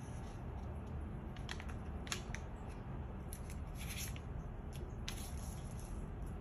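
Square of origami paper rustling and crinkling as it is folded in half and the crease pressed flat by hand, with a few short crisp crackles over a low steady background hum.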